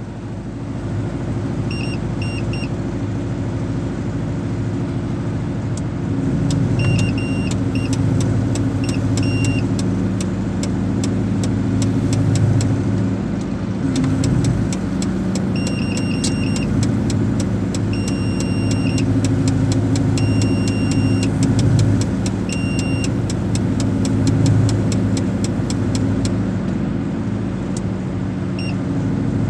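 Terex 160-2 mobile crane's diesel engine running steadily, heard from the operator's cab, swelling and easing as the crane is worked. A warning beeper in the cab sounds short runs of high beeps several times, with a fast ticking through the middle stretch.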